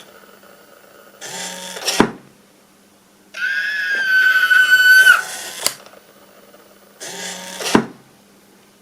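Small hobby servo motors whirring in short runs, with a longer, steady whine in the middle. A sharp click ends the first and last runs, as the box's arm or lid snaps home.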